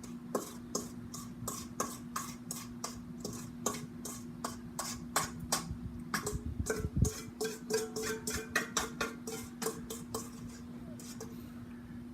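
A metal utensil clicks and scrapes against metal two to four times a second as peaches are poured and worked into a cast iron Dutch oven, thinning out near the end, over a steady low hum.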